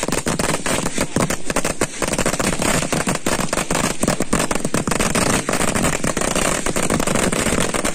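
Firecrackers going off on the ground in rapid succession: many sharp bangs and crackles a second without a break.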